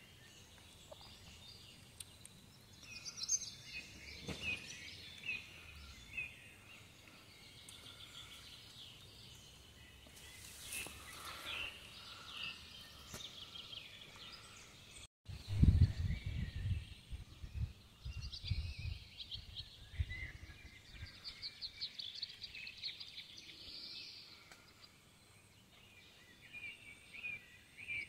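Outdoor ambience of small birds chirping and trilling. About halfway through come several seconds of loud, irregular low rumbling thumps.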